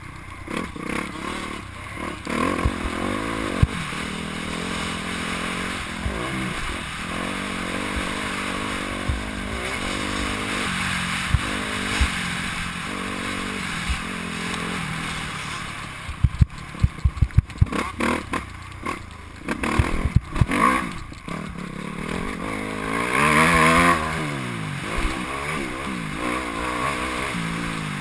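Motocross bike's engine revving up and down as it is ridden round a dirt track, heard from a helmet-mounted camera with wind noise over the microphone. A little past halfway comes a run of sharp knocks and thumps from the rough ground, followed shortly after by a hard rev-up.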